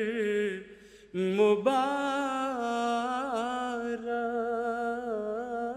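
A man singing a devotional Urdu nazm unaccompanied, drawing out long notes with wavering, ornamented pitch. There is a short breath pause about a second in.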